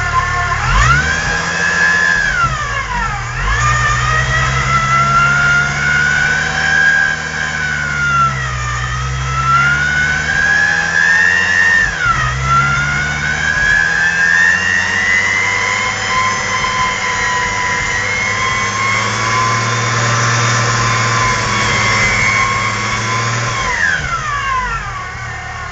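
Supercharged VW VR6 engine being revved by hand at the throttle during its first start, with the supercharger whining. The revs climb and drop back four times, the last a long slow climb that is held high and then falls away near the end.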